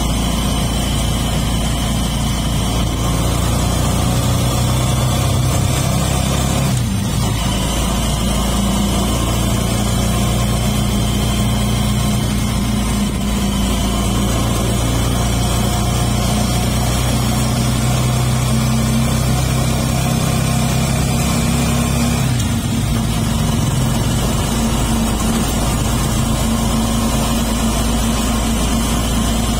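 Motorcycle engine of a tricycle running steadily as it drives along, its note shifting about seven seconds in and again around twenty-two seconds in.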